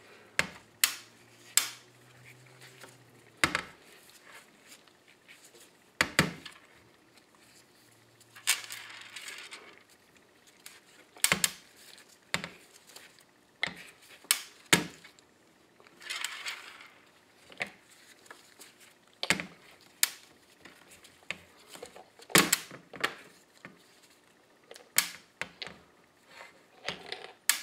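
Steel balls from a Ford power steering gearbox's recirculating-ball piston dropping and clinking onto a sheet-metal tray as the piston is worked off the worm shaft. The clicks come at irregular intervals and vary in loudness, mixed with knocks and short scrapes of the metal parts being handled.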